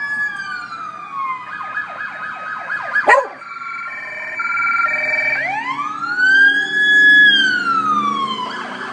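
Fire truck siren switching between patterns: a falling wail, then a fast yelp for about a second and a half, a short stepped two-tone warble, and a long wail that rises, holds high and falls away. A single sharp click about three seconds in.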